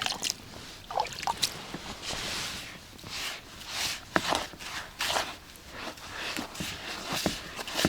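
Hands mixing and kneading damp groundbait in a bucket, just wetted with liquid aroma: irregular wet squishing and rustling strokes.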